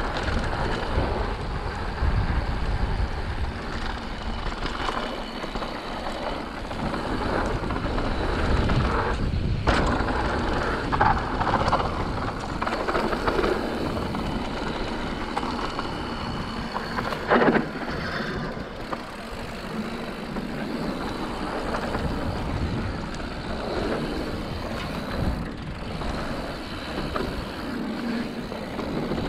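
Mountain bike riding along a dirt singletrack on Maxxis tyres (Assegai front, DHR II rear), picked up by a handlebar-mounted GoPro: a steady noise of tyres rolling over dirt, with a few brief louder knocks, the loudest a little past halfway.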